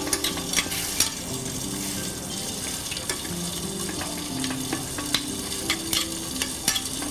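Lamb and whole unpeeled garlic cloves sizzling steadily in a pan, with a spoon clicking against the pan every second or so as they are stirred and turned.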